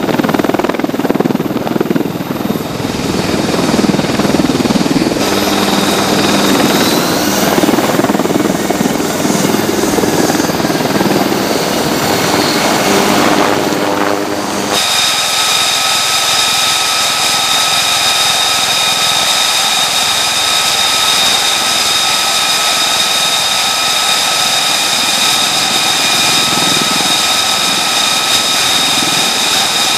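Military helicopter hovering, its rotor and turbine running loud and steady. About halfway through the sound cuts abruptly to a steady, high-pitched aircraft turbine whine made of several pure tones.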